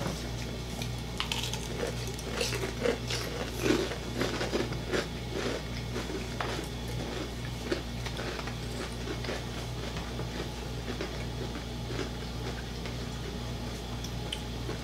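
Close-up eating sounds of fried chicken eaten by hand: bites into the crispy breading, chewing and small wet mouth clicks, busiest in the first half and sparser after. A steady low hum runs underneath.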